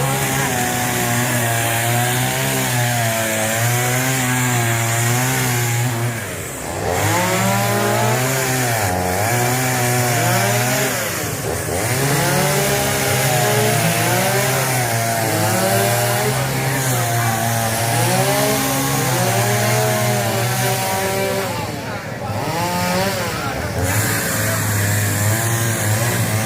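Chainsaw running hard while cutting wood, its pitch wavering and dropping sharply then recovering a few times as it takes the load.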